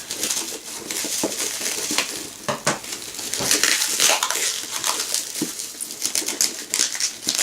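A wrapped pack being opened by hand: crackling, rustling packaging with a busy run of clicks and clinks as small bottles of linseed oil knock together.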